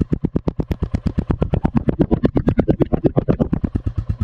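Royal Enfield Classic 350's single-cylinder engine idling in neutral, an even beat of about ten pulses a second, louder and with more clatter in the middle. The owner hears an unwanted tapping from the engine, which the service centre called rocker tappet noise.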